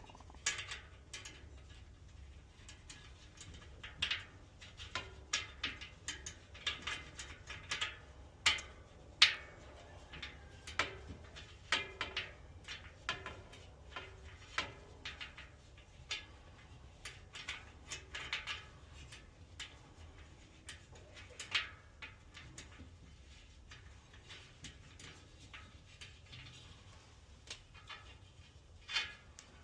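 Irregular light metallic clicks and ticks as a replacement spoke is worked into a bicycle rear wheel and its nipple is started on the threads, a few sharper taps among them.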